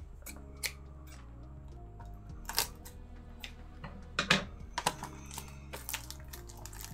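Sharp clicks and taps of Blu-ray packaging being handled, over quiet background music.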